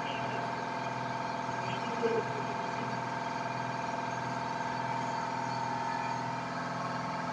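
Hobby diode laser engraver running as it burns a design into wood: a steady mechanical hum of several tones from its motors and cooling fan. A brief louder sound about two seconds in.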